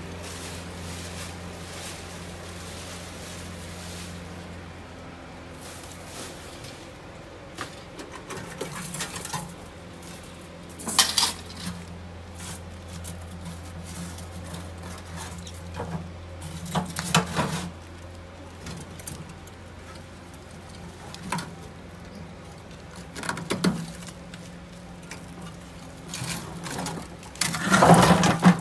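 Scrap metal clanking and clattering as it is shifted by hand, with scattered sharp knocks. The loudest clatter comes near the end, as the rusty steel frame of an old portable generator is gripped and lifted.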